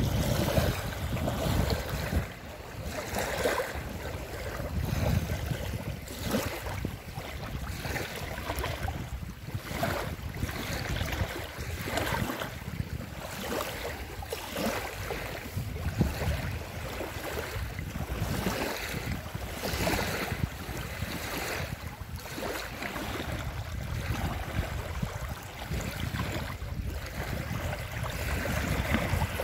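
Small lake waves lapping and washing over a paved boat slipway in irregular swells every second or two, with a low wind rumble on the microphone.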